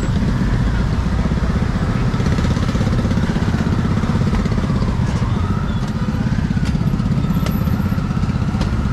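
A motorbike engine running steadily close by, its small engine pulsing evenly, over street noise.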